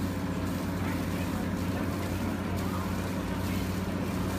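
Boat engine running at a steady, even pitch, with a constant hiss of water and wind over it.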